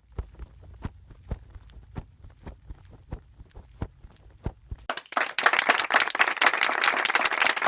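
Irregular soft knocks and taps over a low rumble, then about five seconds in, loud applause with many hands clapping starts.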